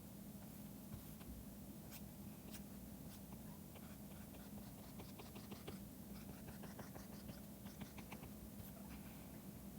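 Faint taps and light scratching of a stylus drawing on a pen tablet, in scattered small strokes over a steady low hum.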